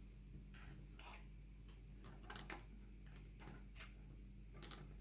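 Scattered small clicks of plastic LEGO bricks being handled and pressed together, irregular and about ten over the few seconds, over a faint steady hum.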